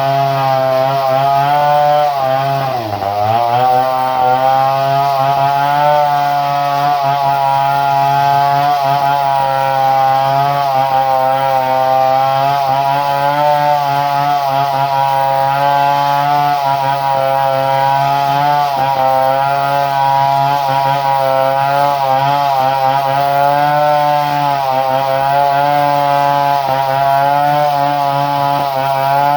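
Two-stroke chainsaw engine running steadily, its pitch dipping briefly about three seconds in and then recovering.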